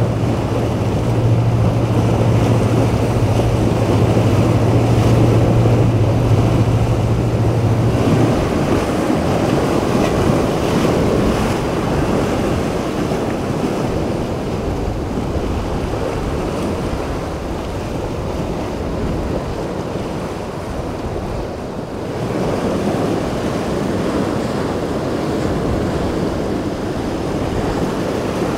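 Waves breaking and wind buffeting the microphone, with a boat engine's steady low drone underneath that stops about eight seconds in.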